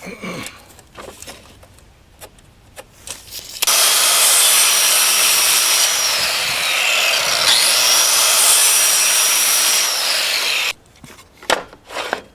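An electric saw running for about seven seconds, cutting plywood, with a high whine that sags in the middle of the cut as the blade takes load and then comes back up. Light knocks of handling the board come before and after the cut.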